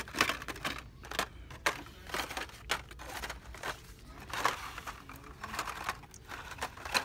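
Hot Wheels cars in plastic blister packs on card backs being pushed aside and flipped through on store display pegs: an irregular string of short plastic clacks and crinkles.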